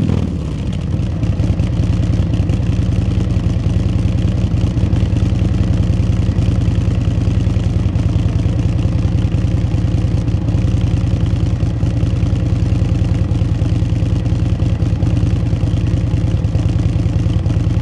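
Harley-Davidson Milwaukee-Eight 121 V-twin idling through 2024 CVO ST Screaming Eagle titanium slip-on mufflers with the restrictors removed and the left muffler's fiberglass packing taken out. The revs drop back from a throttle blip right at the start, then it settles into a steady, deep idle with even exhaust pulses.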